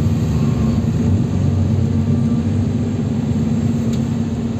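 Interior of a NefAZ 5299 city bus on the move: its Cummins ISBe diesel engine runs with a steady low drone over road noise.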